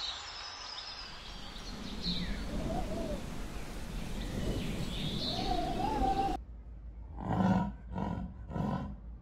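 A lynx gives two wavering, whining calls, the second one longer, over background bird chirps. After a sudden cut, a spotted big cat gives three short, low calls about half a second apart.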